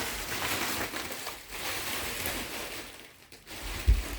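Thick plastic mattress wrapping being handled and pulled off, crinkling and rustling with a short pause, and a low thump near the end.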